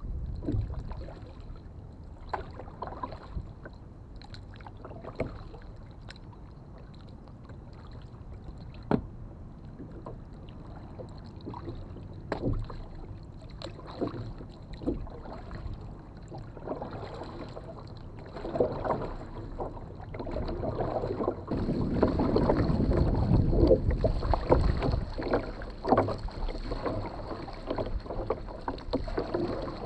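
Water sloshing and splashing against the hull of a moving kayak, in irregular splashes over a steady wash. It gets louder and choppier in the second half as the boat reaches rougher open water.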